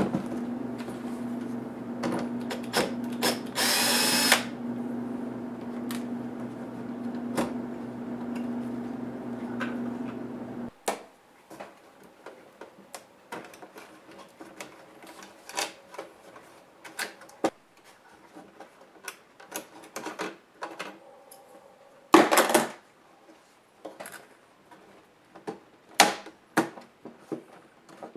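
Scattered clicks and taps of a laptop motherboard and plastic case parts being handled and pried during disassembly. For the first ten seconds they play over a steady low hum, which stops suddenly. A short hissing burst comes about four seconds in, and a louder clatter about two-thirds of the way through.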